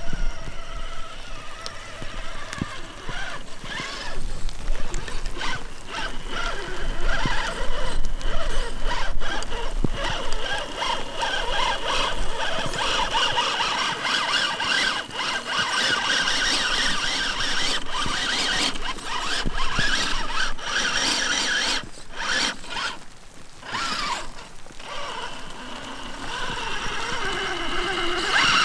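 Electric drivetrain of a Traxxas TRX-4 RC crawler, with a HobbyWing sensored brushless motor, whining through its gears. The pitch rises and falls with the throttle as the truck crawls. Scattered clicks and crackles come from the tyres and chassis working through dry grass.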